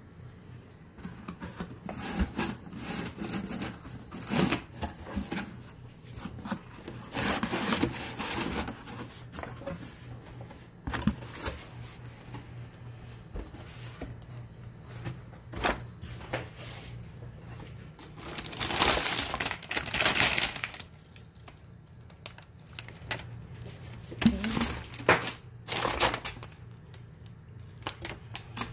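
Cardboard takeout box and brown paper bag being handled: flaps opened, paper rustling and crinkling, with irregular knocks and clicks from the packed containers. Two longer stretches of rustling come about a quarter of the way in and about two-thirds of the way through.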